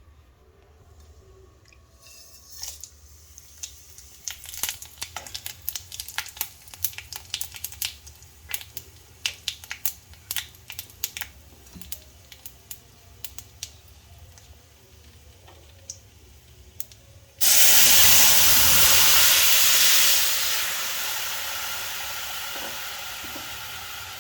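Scattered crackling and popping from a hot pan, then a sudden loud sizzling hiss about seventeen seconds in as liquid meets the hot pan, slowly dying away.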